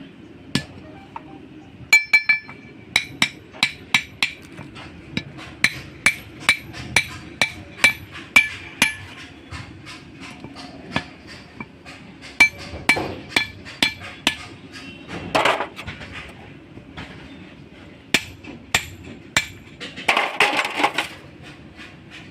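Hand hammer striking steel on a truck propeller shaft's universal-joint cross and bearing cups, repeated ringing metal blows in quick runs of two or three a second, with two short rough scraping rasps in between.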